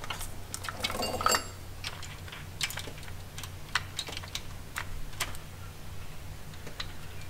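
Steel timing chain of a Ford 4.6-litre two-valve V8 clicking and clinking in scattered light clicks as it is fed by hand over the cam sprocket and around the crank sprocket.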